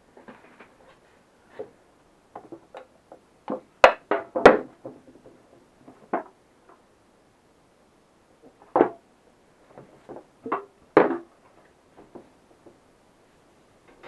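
Scattered sharp clicks and knocks of a metal acetone can being opened with a screwdriver and handled on a plastic-covered table, the loudest pair about four seconds in and more near the end.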